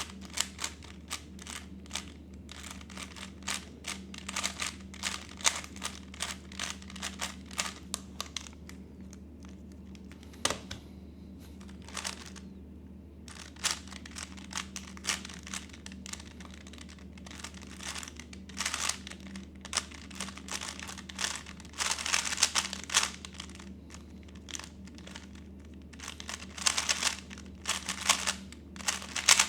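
3x3 Rubik's cube being speed-solved: rapid plastic clicking of the layers turning, in quick flurries broken by short pauses.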